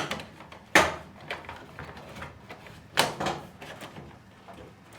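Sharp knocks and clatters from handling and fitting metal ceiling panels in a small room. One knock comes at the start, the loudest just under a second in and another about three seconds in, with lighter taps between.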